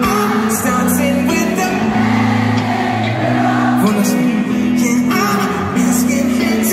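A live pop band playing, with a male lead singer singing into a handheld microphone over sustained bass notes and guitar.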